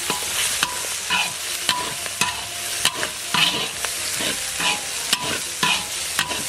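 Chili bean paste and spicy braising sauce frying in hot oil with a steady sizzle, while a spatula stir-fries and scrapes the pan in strokes about every half second.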